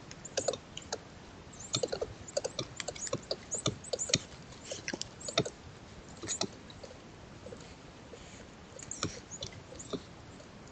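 Dry forest leaf litter crackling and rustling in irregular bursts as coatis root and forage through it, with quieter gaps between spells.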